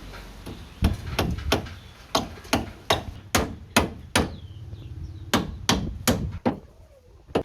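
Repeated hammer blows, about two and a half strikes a second, a dozen or so in all, with a short pause near the middle.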